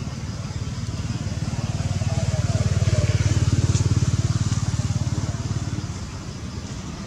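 A motor vehicle engine passing, growing louder to a peak in the middle and then fading away.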